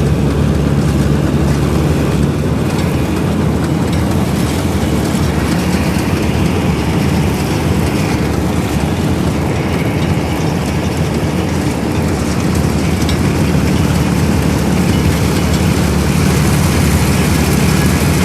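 1965 Ködel & Böhm Köla Combi combine harvester running steadily while harvesting: an even engine note under a constant rush of machinery noise.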